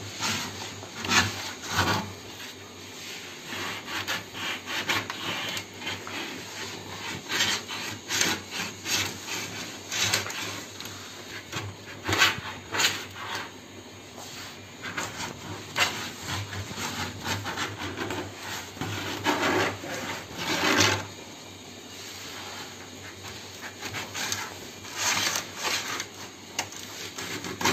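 Irregular scraping and scratching strokes of a sewing-needle circle-cutting jig being worked around a 0.8 mm Sunmica laminate sheet, scoring out a round disc.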